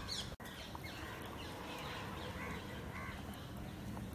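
Birds calling faintly, a scatter of short calls over a steady low background noise.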